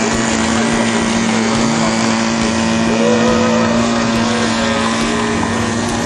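Radio-controlled Cessna model airplane's engine and propeller running at a steady pitch while it taxis.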